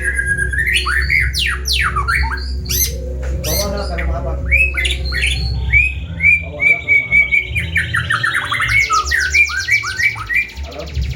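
A songbird singing a varied, continuous song of whistled notes, quick up- and down-sweeps, sharp chips and rapid trills, over a steady low hum.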